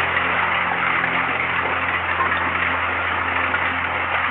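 Heavy downpour of rain mixed with hailstones pelting the ground and pots, a dense steady hiss.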